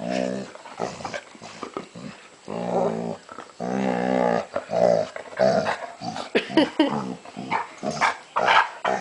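Puppy vocalizing with pleasure while having her ears rubbed: long drawn-out low calls in the first half, then a run of short rising whines and yips.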